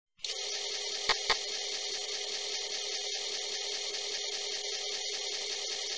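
Commodore floppy disk drive running as a program loads from disk, a steady motor whir with two sharp clicks about a second in. The sound cuts off abruptly at the end.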